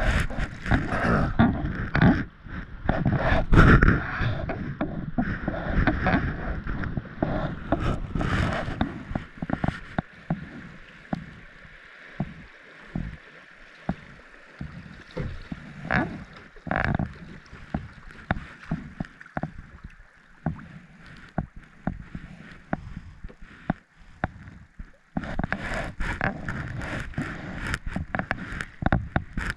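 Kayak paddle strokes splashing and river water rushing over a shallow riffle around a plastic kayak. It is louder at the start and again near the end, quieter through the middle.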